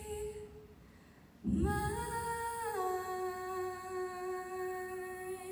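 A solo female voice singing unaccompanied, holding long notes: one note fades out about half a second in, and after a short breath a new long note begins, stepping down in pitch about a second later and held on.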